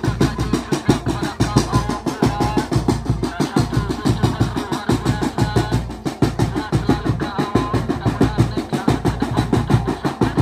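Upbeat dance music with a fast, steady drum beat and a heavy bass, a melody playing over it.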